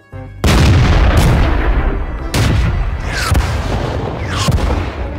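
Tank cannon fire sound effects: a loud cannon blast about half a second in and another near the middle. Later come two short falling whistles, each followed by another blast.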